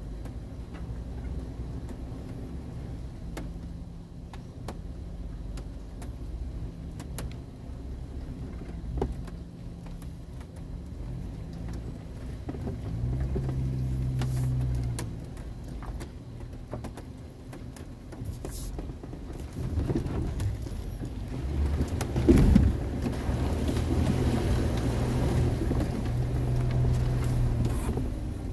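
Four-wheel-drive's engine running inside the cab as it crawls a muddy trail, the engine note rising twice as it pulls harder. A loud knock comes about two-thirds of the way through, followed by a hiss of tyres working through the mud.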